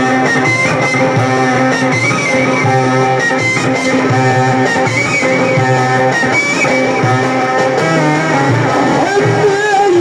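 Loud amplified instrumental music from an Egyptian Sufi inshad band: a melody line of held notes that glide between pitches, over a steady low beat.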